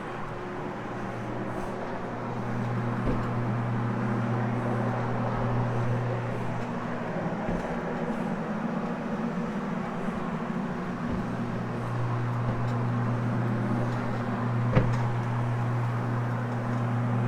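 Carpet-cleaning floor machine running steadily with its electric motor humming while a hog's hair fiber pad scrubs worn carpet. Its low hum drops out briefly about two-thirds of the way in, and there is one sharp click near the end.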